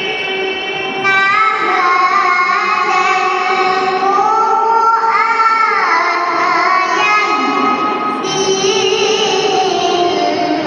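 A young girl's voice reciting the Quran in the melodic tilawah style, holding long sustained notes that glide up and waver in ornamented turns, with a short breath break about halfway through.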